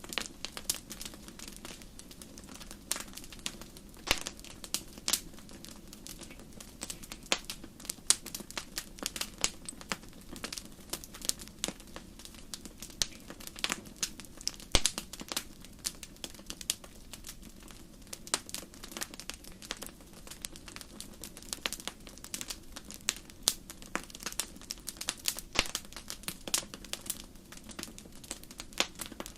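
Wood campfire crackling: irregular sharp pops and snaps over a steady low rumble of burning.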